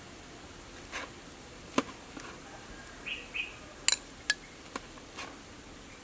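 A metal spoon clinking and scraping against a metal steamer pan and a bowl while scooping steamed egg and pork custard: a handful of separate sharp clinks, the loudest a little before four seconds in.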